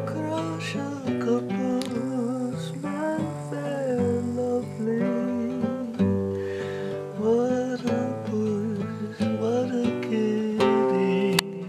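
Nylon-string classical guitar with a capo, strummed and picked in a slow hymn accompaniment, with a man's voice carrying a gliding melody over it.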